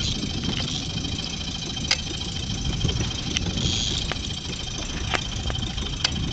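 Small fishing boat's engine running steadily at trolling speed, a continuous low rumble, with a few sharp clicks or knocks about two, five and six seconds in.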